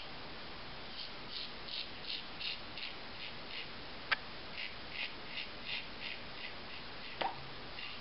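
Gillette Slimtwist double-edge safety razor with a Wilkinson Sword blade cutting through lathered stubble: short scratchy strokes, about three a second, in two runs. A sharp click about four seconds in and another near the end.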